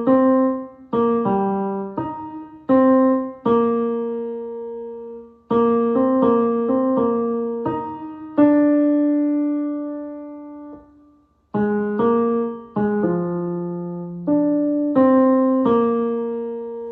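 Piano playing a passage of a choral arrangement as a line of separate, decaying notes in the middle register, with one long held note about halfway through and a brief break before the notes resume.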